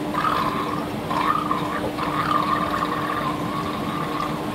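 Water splashing and trickling as a hang-on breeder box of fry is tipped and emptied into a glass aquarium, with a steady hum underneath.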